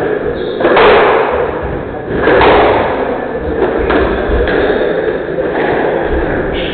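Squash rally: the ball is struck by rackets and smacks off the court walls in sharp hits every second or two. Each hit rings with a short echo in the enclosed court.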